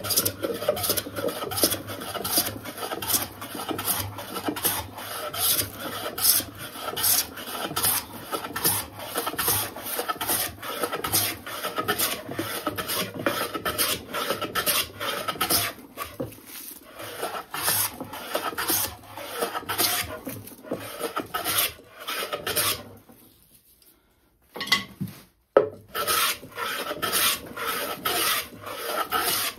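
Metal hand plane taking shavings off a spruce board, stroke after stroke, a rasping hiss of the blade cutting wood grain. The strokes stop for about two seconds near the end, then start again.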